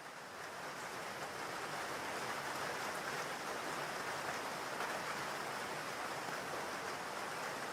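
Steady rain falling: an even hiss that fades in over the first second or two, then holds level.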